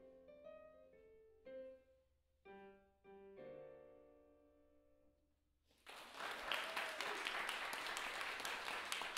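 Casio digital piano playing the last few notes and chords of a simple blues piece, ending on a held chord that fades away. About six seconds in, audience applause breaks out and keeps going, louder than the piano.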